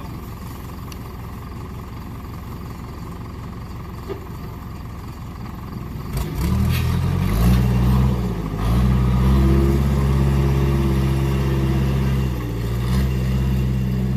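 Backhoe diesel engine running steadily, then revving up hard about six seconds in and staying at high revs, its pitch dipping and recovering twice as the load changes.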